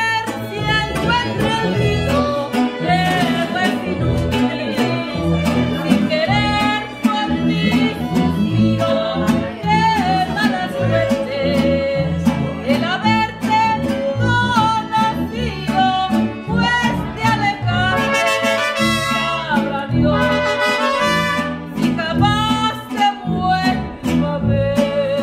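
Mariachi band playing live, a man singing over violins and strummed guitars with a sousaphone bass line.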